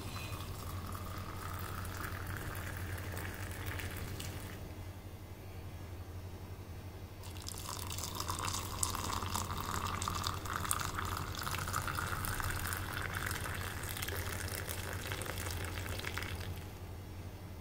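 Milk poured in a thin stream into glass mugs of whipped coffee, in two pours: a short one, then after a pause a longer one of about nine seconds. The pitch of the filling rises slightly as each mug fills.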